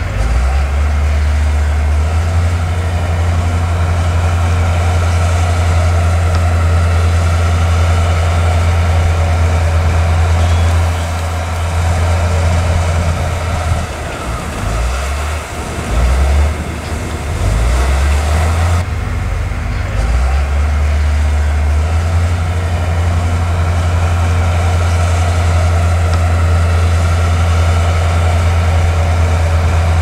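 Bulldozer's heavy diesel engine running steadily under load while pushing soil. It eases off and wavers for several seconds in the middle, then settles back to a steady run.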